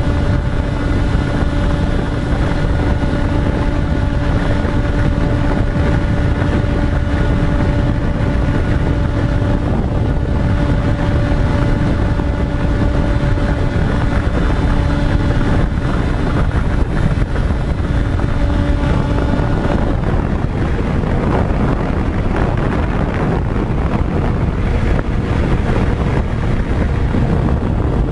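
Electric motors and propellers of an FPV radio-controlled model aircraft, a steady pitched hum that shifts to a different pitch about two-thirds of the way in, under heavy wind rumble on the microphone.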